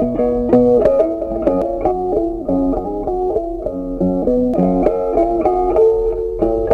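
Background music: a plucked guitar melody of quick, changing notes.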